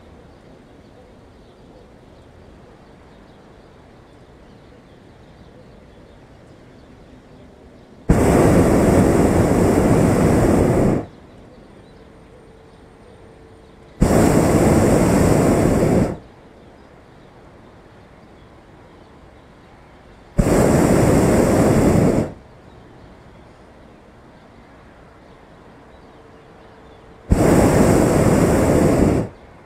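Hot-air balloon propane burner firing four times, each blast a loud, even rush of flame noise lasting two to three seconds and stopping abruptly. A faint steady hiss carries on between the blasts.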